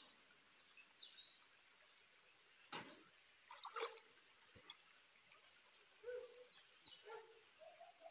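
Steady high-pitched insect buzz, with a couple of faint knocks about three and four seconds in.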